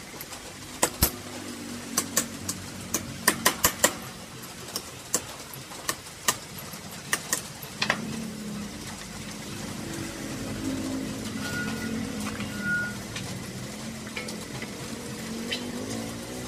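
A string of sharp, irregular metallic clicks and clinks as small brass tank fittings and hand tools are handled and knocked together, ending about eight seconds in. A steady low rumble runs underneath and grows slightly louder in the second half.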